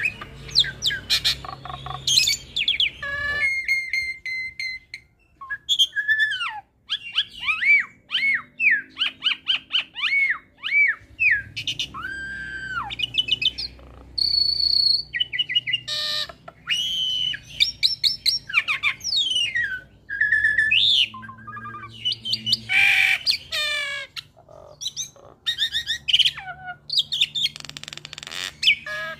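Hybrid myna (Asian pied starling × Nias hill myna) singing a long, varied song of whistles and chirps. It runs through many short falling whistled notes, quick stuttering series, a few held steady whistles and a harsh chattering stretch near the end.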